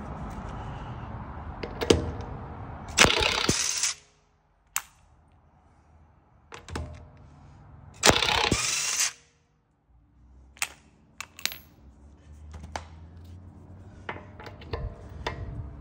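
Makita half-inch cordless impact wrench hammering in two runs of about a second each, loosening a car's lug nuts. Short metallic clinks and knocks come in between and after.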